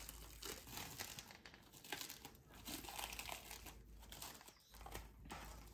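Faint crinkling and rustling of plastic takeout packaging being handled.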